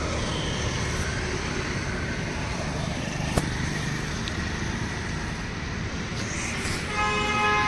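Steady rush of road traffic, engines and tyres passing, with a single sharp click about halfway and a vehicle horn sounding near the end.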